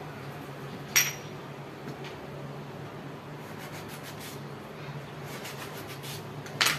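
A sharp metallic clink with a short ring about a second in, then faint knife clicks and scrapes as a small eggplant is slit on a wooden cutting board, and another sharp knock near the end, over a low steady hum.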